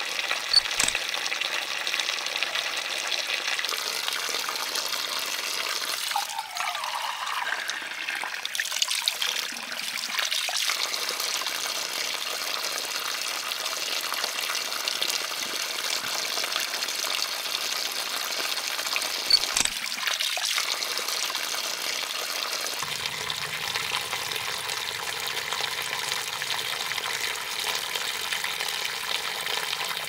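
Thin stream of water pouring from a bamboo spout and splashing onto wet rocks, a steady trickling and splashing. Two sharp clicks stand out, one just after the start and one about two-thirds through.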